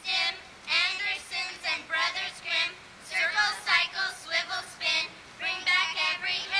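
A group of girls and a woman singing together in short phrases with brief breaks.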